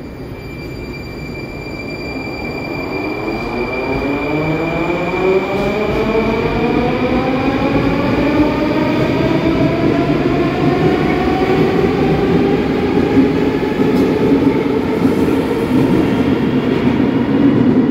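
Rusich 81-740/741 articulated metro train pulling out and accelerating: the traction motors give a whine of several pitches rising steadily, over a growing rumble of wheels on rail, getting louder throughout. A steady high tone near the start fades away as it gathers speed.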